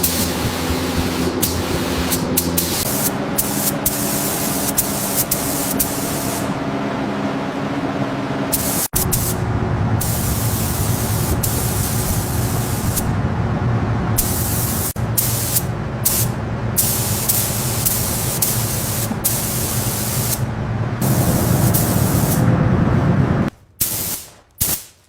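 A steady spraying hiss with a low hum beneath it. It changes abruptly several times and stops shortly before the end.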